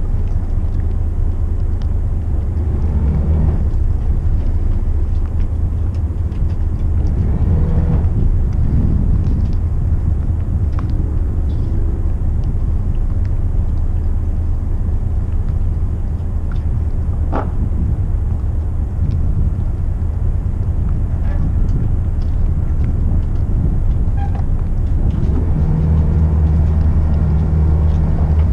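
McKinna 65 motor yacht's inboard diesel engines running at low speed during docking manoeuvres, a steady low rumble that picks up briefly a few times, most strongly near the end, as the engines are put in gear and throttled to hold the boat's line toward the seawall.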